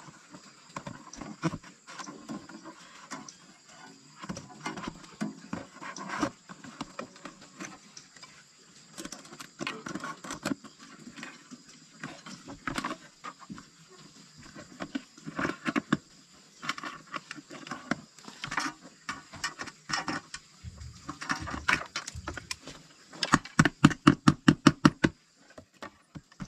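Food-preparation handling noises: irregular knocks, taps and scrapes of utensils and ingredients, then a fast, even run of about a dozen loud knocks, about seven a second, near the end.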